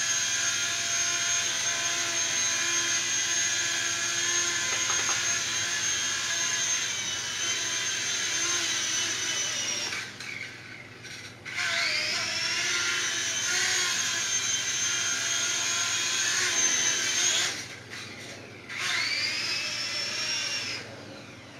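Heliguy Atom FP 9958 toy RC helicopter's small electric motors running with a high-pitched whine. The whine cuts out about ten seconds in, spins back up with a rising pitch, cuts out again, spins up once more, and stops near the end.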